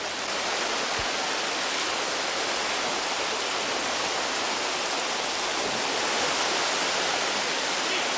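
Fast-flowing river water rushing steadily, a dense even wash of sound with no break.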